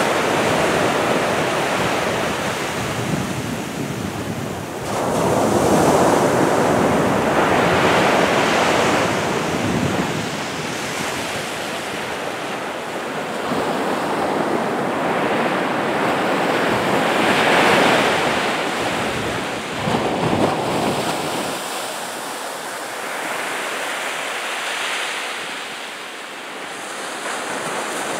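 Small sea waves breaking and washing up a sandy beach, the surf swelling and ebbing every few seconds.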